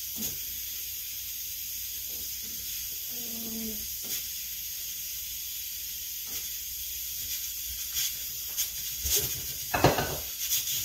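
Pressure cooker hissing steadily as it cooks, with a few knocks and clatters near the end as plantain pieces are dropped into a pot of water, the loudest just before the end.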